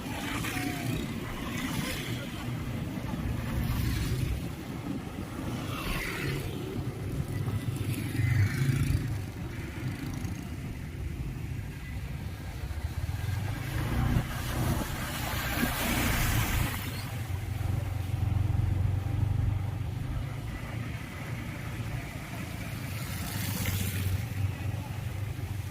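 Motor vehicle engines running with a steady low hum, and several rushes of noise as vehicles go past.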